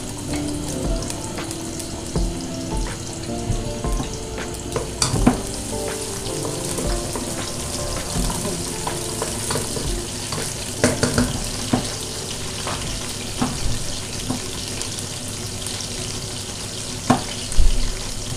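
Chopped garlic sizzling in hot oil in an aluminium pot, browning, stirred with a wooden spoon. A few sharp knocks against the pot stand out, around five seconds in, at eleven seconds, and near the end.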